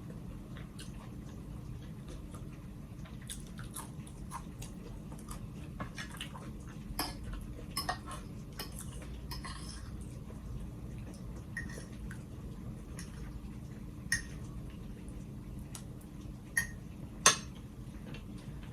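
Eating at a meal: utensils clicking and scraping against a plate, with chewing, over a steady low hum. The sharpest clicks come near the middle and near the end.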